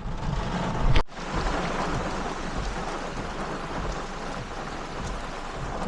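Heavy rain pouring down in a steady hiss. The sound cuts out for an instant about a second in.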